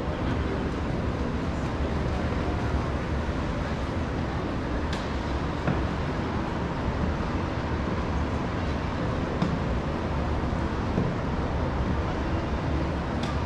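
Steady city traffic noise rising from the street far below, a constant wash with a heavy low rumble and a few faint ticks.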